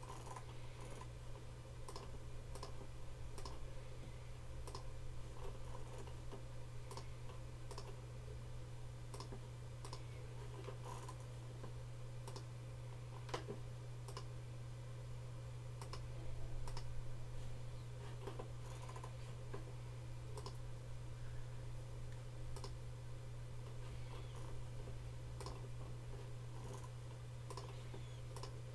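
Sparse, irregular clicks, roughly one a second, over a steady low electrical hum.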